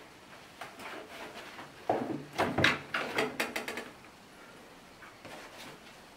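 Quick taps, scuffs and rustles of a sneaker being pulled on and worked onto the foot, busiest in the middle with a few more taps near the end.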